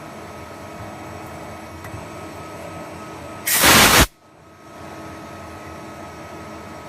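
CNC turning center running steadily through an automatic deep-drilling cycle, a constant machine hum with a faint steady whine. About halfway through, a loud hiss lasting about half a second cuts in and stops abruptly. The machine noise drops briefly after it, then returns.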